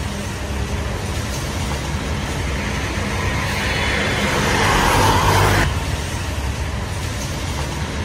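Road traffic noise with a steady low rumble. About three seconds in a passing vehicle swells louder, then cuts off abruptly about five and a half seconds in.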